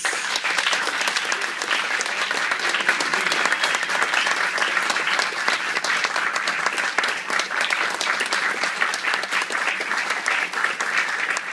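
Audience applauding: the steady, dense clapping of many hands.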